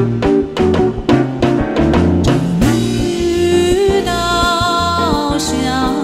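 Background music: a pop band with drum kit and guitar keeping a regular beat, then long held, wavering sung notes from about halfway.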